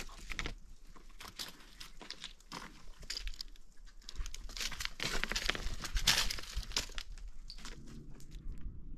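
Irregular crinkling and crunching with scattered clicks, growing denser and louder about halfway through.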